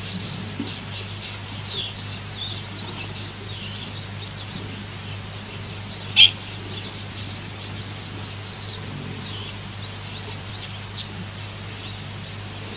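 Small birds chirping in short, scattered calls, busiest in the first few seconds, with one much louder sharp call about six seconds in, over a steady low hum.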